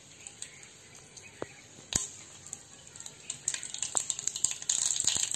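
Mustard seeds in hot oil in a non-stick saucepan, starting to splutter: a few scattered pops at first, then the crackling and sizzling grow denser and louder from about three and a half seconds in as the seeds begin to crackle.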